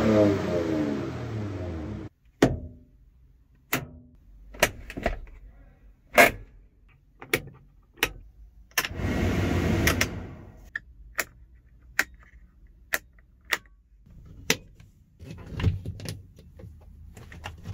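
Toyota Land Cruiser 70's 4.0-litre V6 petrol engine running at the tailpipe, stopping abruptly about two seconds in. After that comes a string of sharp clicks, roughly one every second or so, from the cab's switches, among them the overhead dome-light switch. About nine seconds in there is a steady whir lasting about a second and a half.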